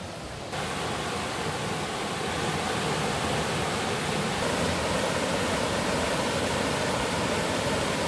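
Mountain stream rushing steadily over a small rocky waterfall, getting louder about half a second in.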